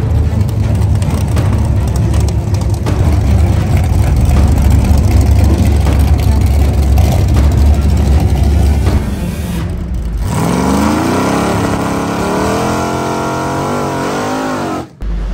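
Drag-racing cars at full throttle, a loud, dense engine rumble. About ten seconds in, it changes abruptly to a single engine whose pitch climbs steadily as the car accelerates down the strip, then wavers before cutting off near the end.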